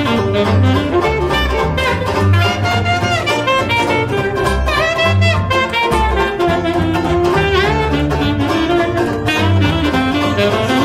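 Saxophone playing a swinging solo melody over a strummed banjo and plucked upright bass walking steadily underneath.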